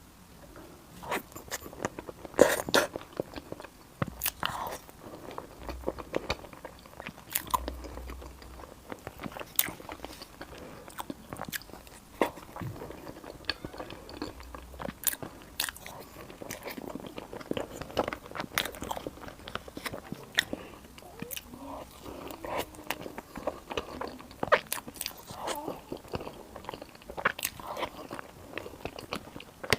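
Close-miked eating: a person biting and chewing food, with many short, sharp crunches and mouth clicks at an irregular pace.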